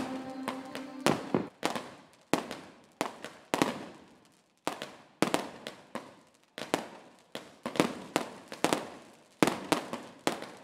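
Fireworks going off in an uneven series of sharp bangs, about two a second, each trailing off in a short echo.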